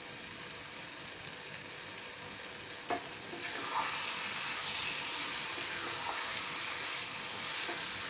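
Fenugreek leaves and potatoes sizzling in a pan. Just before three seconds in, a spatula knocks against the pan; stirring follows, with a louder sizzle, scraping and occasional light clacks.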